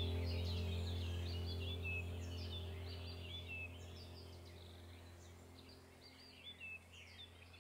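Ambient background music, a steady low drone, with birdsong chirping over it, fading out gradually.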